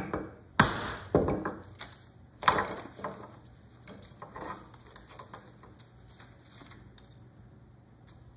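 Brass-headed carving mallet striking the handle of a gouge as it cuts through thin wood veneer: four sharp knocks in the first three seconds, the second the loudest. After that come lighter clicks and the rustle of paper as the cut veneer piece is handled.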